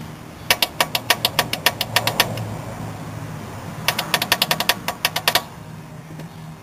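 Turbocharged 4G63 four-cylinder engine running, with two runs of loud, sharp knocking of about nine knocks a second, each lasting about a second and a half. It is severe rod knock: worn connecting-rod bearings with metal-on-metal contact, which the owner puts down to fuel-diluted oil.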